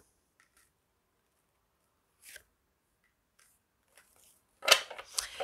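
Tarot cards being handled and laid on the spread: a faint paper rustle about two seconds in, then a louder run of card flicks and slaps near the end.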